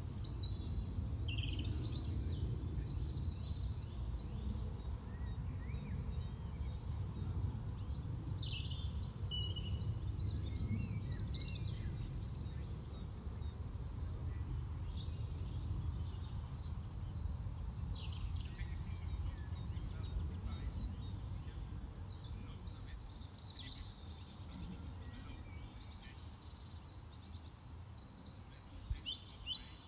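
Small birds singing and chirping in many short, scattered high phrases over a steady low rumble, which eases off somewhat over the last several seconds.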